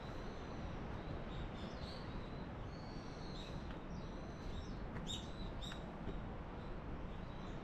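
Small birds calling with short, high chirps and brief gliding notes, repeated on and off, over a steady rushing background noise.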